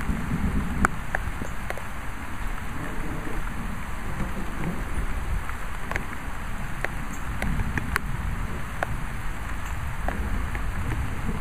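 Steady rain falling, with scattered sharp taps of drops landing close to the microphone. A low rumble of distant thunder swells at the start and again a few seconds in.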